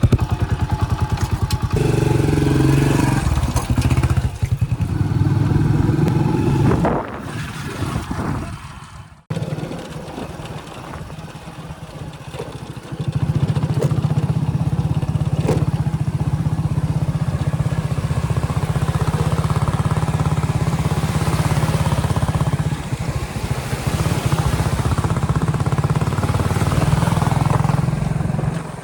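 JCB backhoe loader's diesel engine running. It cuts off abruptly about nine seconds in, runs quieter for a few seconds, then comes back up to full strength.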